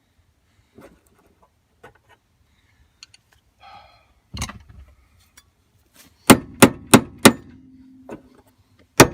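Metal striking the truck's door hinge pin to drive it out: one sharp strike, then a quick run of four, each leaving a short low metallic ring, with a fresh volley starting at the end. A few light taps and scrapes of the tool come before.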